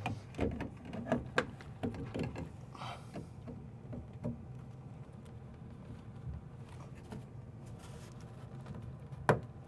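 PVC drain fittings being handled and set into place: a run of light knocks and scrapes in the first few seconds, quieter handling after, and one sharp click near the end, over a low steady hum.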